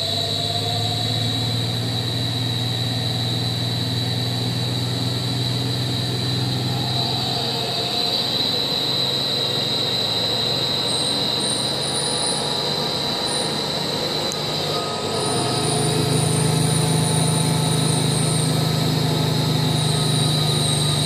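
Ghiringhelli M200 centerless grinder running its CNC grinding cycle: a steady high whine over a low machine hum, growing louder about three-quarters of the way through.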